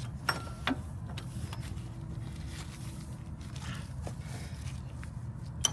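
A few light clicks and taps of a hand tool being fitted at a skid steer's engine oil filter, over a steady low rumble.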